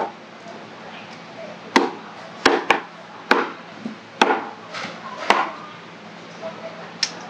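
Kitchen knife knocking sharply on a wooden chopping board while filleting a squirrelfish, about seven uneven strikes a second or less apart, with a pause near the end before a last knock.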